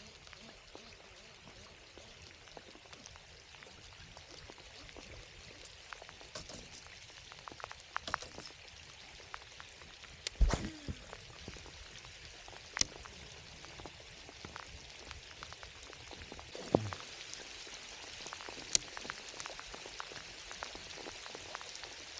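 Steady rain pattering, with scattered sharp taps, the loudest about halfway through.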